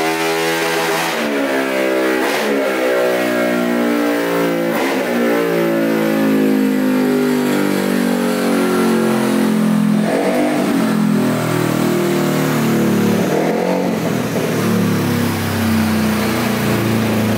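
A vehicle engine revving hard and holding high revs, its pitch drifting slowly lower, with a few brief dips in pitch.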